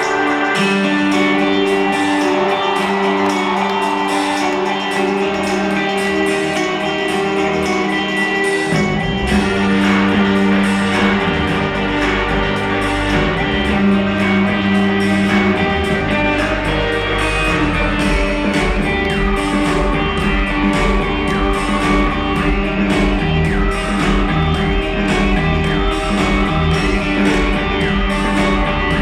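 Live rock band playing in an arena: guitar-led music, with bass and drums coming in about nine seconds in.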